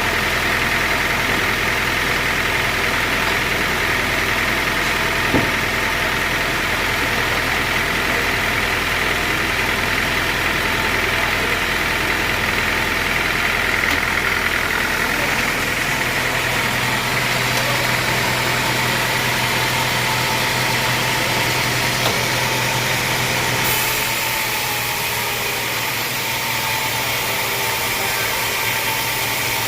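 A sawmill's engine running steadily, with a constant machine hum under a hiss of cutting noise; about four fifths of the way through the sound shifts and drops slightly.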